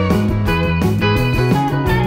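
Background music: a guitar-led instrumental track with a steady beat.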